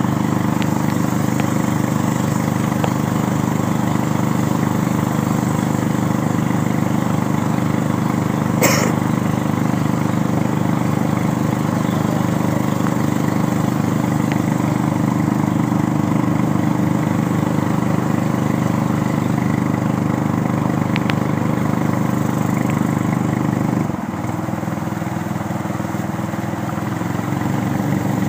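Small boat engine running steadily under way, slowing with a drop in pitch and level about 24 seconds in and picking up again near the end. One short sharp knock about nine seconds in.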